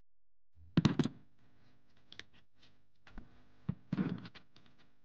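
Light clicks and knocks of hand work in an engine bay, in two short clusters about a second in and about four seconds in, with a few single clicks between.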